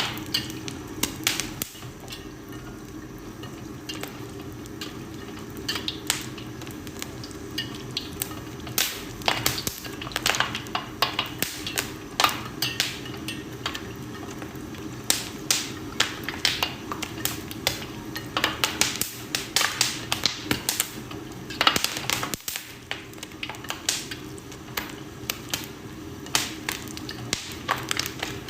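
Popcorn kernels popping: sharp, irregular pops, a few at first and then coming thick and fast from about nine seconds in, over a steady low hum.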